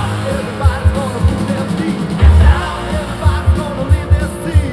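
Rock music with a singer and a steady drum beat.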